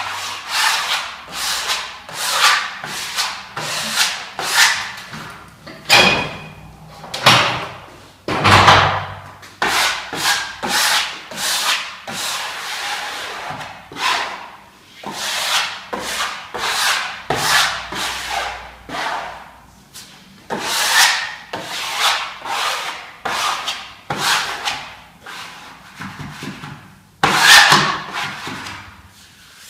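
Plastic wallpaper spatula scraping over freshly pasted vinyl wallpaper in a quick run of rubbing strokes, about one to two a second, with one louder stroke near the end. The strokes press out trapped air and leftover paste from under the paper.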